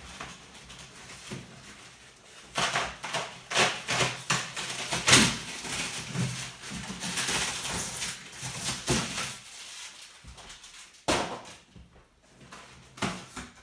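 Polystyrene packing blocks and cardboard rubbing, scraping and rustling as they are lifted out of a cardboard box, in a run of irregular noisy strokes that is busiest from about two and a half to ten seconds in. A sharp knock comes about eleven seconds in.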